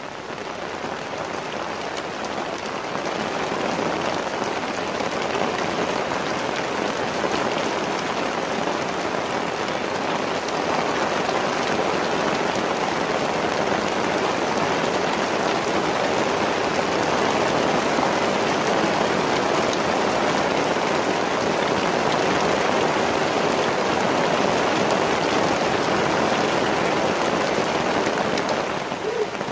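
Steady rain falling on open water, an even hiss that grows heavier over the first few seconds and then holds.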